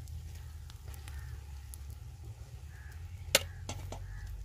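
Rice tipped from a plate into a large aluminium pot of egg masala cooking over a fire, with faint sizzling under a steady low rumble. One sharp knock a little past three seconds in, and faint crow caws.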